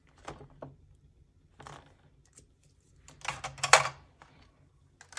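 Handling noises at a desk: a few short taps and rustles of pen and paper, the loudest about three and a half seconds in.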